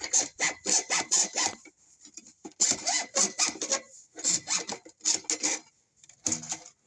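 Hand saw cutting through a drain vent pipe with quick back-and-forth strokes, about five a second, in several runs broken by short pauses.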